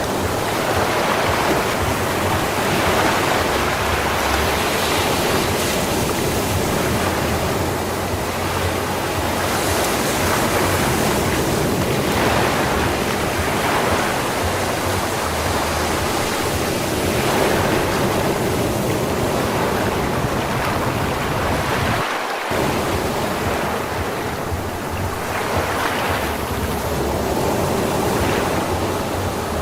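Sea waves breaking and washing up on a sand beach: continuous surf that swells and ebbs every few seconds.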